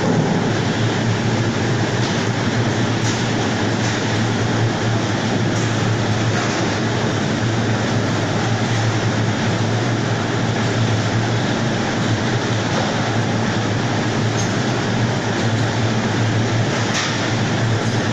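Steady, loud factory machinery noise from a whole-chicken processing line with its conveyor and weight-grader belts running: a continuous low hum under a wash of mechanical noise, with a few faint clicks.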